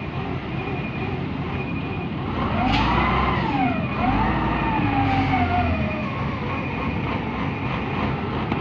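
Kobelco RK160-2 rough terrain crane's diesel engine running, revved up twice in the middle with a whine that rises and falls with it as the crane works its hydraulics. A short high beep repeats about once a second.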